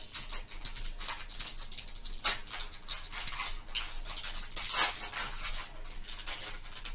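Pokémon trading cards being handled: card stock and plastic sleeves or foil wrappers rustling, sliding and clicking in the fingers, with a couple of sharper clicks along the way.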